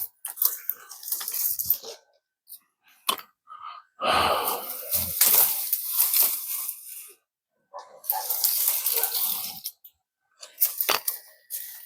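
Leafy branches and brush rustling and crackling in several irregular bursts lasting one to three seconds each, with a couple of sharp snaps between them.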